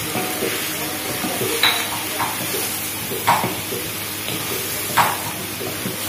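A wooden spatula scrapes and knocks against a steel wok as sliced palm heart stir-fries with a steady sizzle, with a few sharper knocks of the spatula on the wok.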